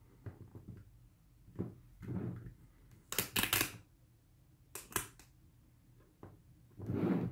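Hands pressing and rubbing a vinyl decal down onto a chrome-finished football helmet shell: a few short rubbing and crackling sounds, the loudest a quick cluster about halfway through.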